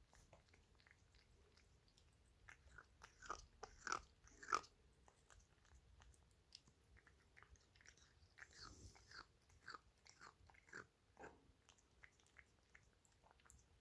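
A pet eating: sharp crunching and chewing clicks, loudest in a cluster about three to four and a half seconds in, with another run of them from about eight to eleven seconds.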